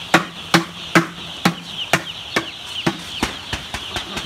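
A large flock of day-old broiler chicks peeping continuously. Over it come sharp knocks, about two a second, loudest in the first half and fading toward the end.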